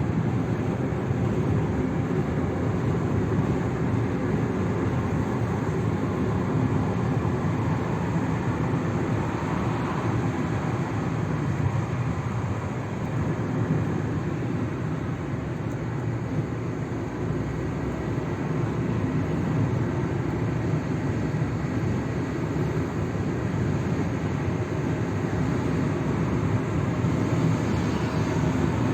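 A steady low mechanical rumble with a faint constant hum, the sound of a running engine or vehicle traffic.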